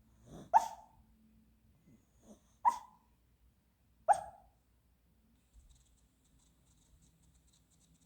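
A sleeping dog barking in its sleep: three short, sharp barks about one and a half to two seconds apart, with a soft breath before the first.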